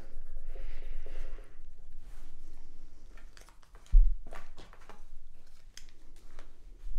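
Alcohol prep pad rubbing on the metal bottom plate of a Strymon effects pedal to lift adhesive residue, for about the first second. Then come scattered light handling ticks and a dull thump about four seconds in.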